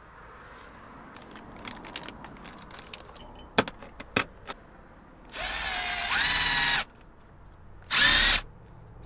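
Cordless drill driving a screw through carpet into the platform board: a run of about a second and a half whose motor whine steps up in pitch partway, then a second short burst near the end. A few small sharp clicks before it as the hinge hardware is handled.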